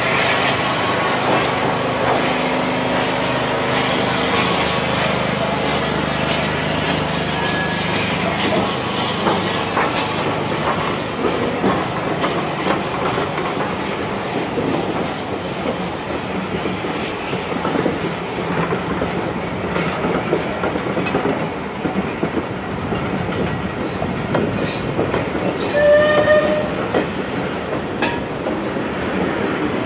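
Steam-hauled passenger train pulling away behind Battle of Britain class locomotive 34081, its coaches rolling past with a steady rumble and wheels clicking over the rail joints. A brief pitched tone sounds near the end.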